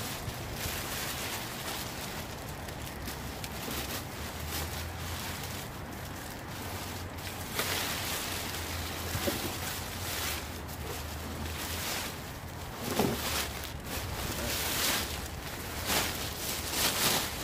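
Plastic garbage bags rustling and crinkling while items are handled and dropped, with scattered knocks, over a steady low hum.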